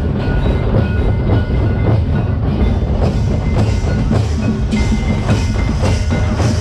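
Folk drum ensemble of hand-played two-headed barrel drums (mandar) beating a fast, dense rhythm. A thin sustained high note comes in over the drumming about two-thirds of the way through.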